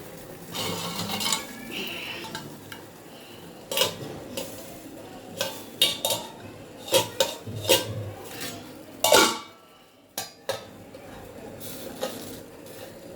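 Metal cookware clinking and clattering: a steel strainer and lid being set on a pot of water. There is a run of separate knocks, with the loudest, a longer clang, about nine seconds in.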